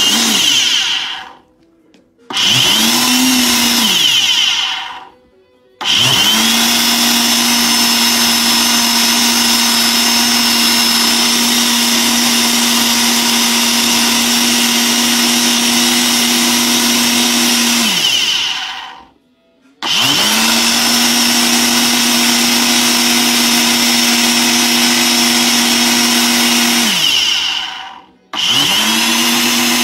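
Ninja Auto-iQ 1000-watt personal blender blending a fruit smoothie on its automatic program: the motor runs in bursts with short pauses between, a short pulse, then a long run of about twelve seconds, a pause, a run of about seven seconds and another short pulse, spinning up and winding down each time.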